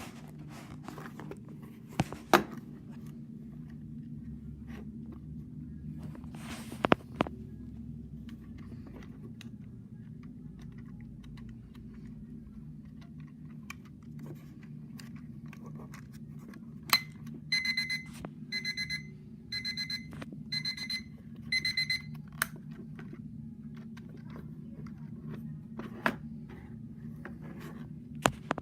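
IKEA alarm clock's electronic beeper sounding about two-thirds of the way through: five short bursts of high beeping, each a rapid trill, ending with a click. Sharp clicks come earlier, the loudest a few seconds in, over a steady low hum.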